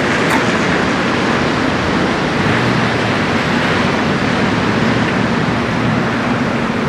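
Steady rushing noise of wind and waves, with a faint low hum underneath.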